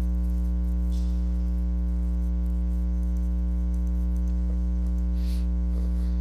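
Steady electrical hum with a stack of evenly spaced overtones, strongest at the low end. A couple of faint soft noises come about one second and five seconds in.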